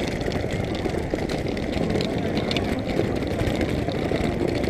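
Wheeled suitcases rolling over brick paving: a steady rattling rumble.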